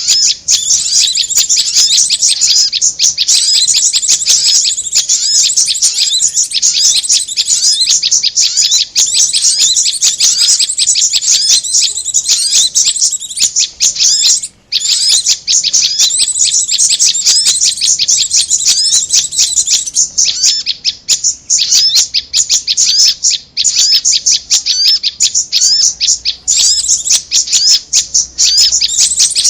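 Bird-lure recording of korlap and prenjak (prinia) calls: fast, unbroken high-pitched chirping with one brief pause about halfway.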